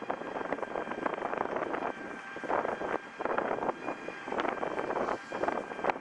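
Outdoor city ambience: a steady wash of traffic noise that swells and dips, with wind on the microphone and scattered small clicks.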